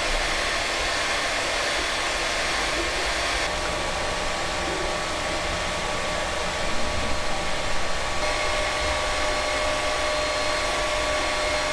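Creality Ender 3 V2 3D printer mid-print, its cooling fans giving a steady hiss. A faint whine joins in about two-thirds of the way through.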